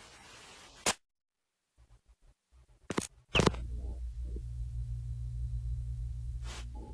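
A few sharp clicks and dropouts, then from about three and a half seconds a steady low droning hum sets in, the start of the film's ambient credits soundtrack.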